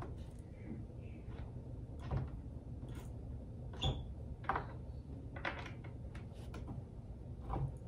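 Scattered light knocks and clicks, about seven in all, from hands shifting a sofa arm's metal bracket against the frame while lining up its screw holes.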